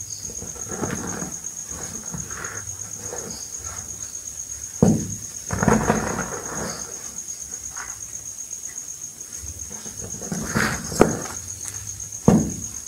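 Reformed gym chalk ball crushed by hand: sharp crunching cracks as it breaks, once about five seconds in and twice near the end, with soft powdery crumbling and sifting of chalk dust between the hands.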